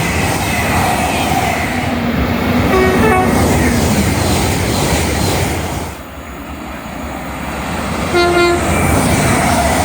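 Trains running past at speed, with loud wheel and rail noise, sounding short horn blasts: one about three seconds in and a brief toot just after eight seconds. The train noise drops away abruptly about six seconds in, then builds again.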